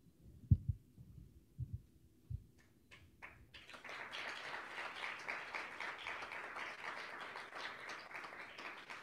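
A few low thumps, then an audience applauding: scattered claps about three seconds in that build into steady applause.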